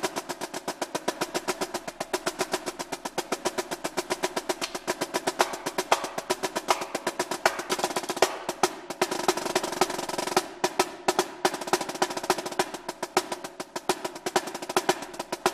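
Rudimental drumming on a Pearl marching snare drum with wooden drumsticks: fast strokes and rolls with sharp, closely spaced hits.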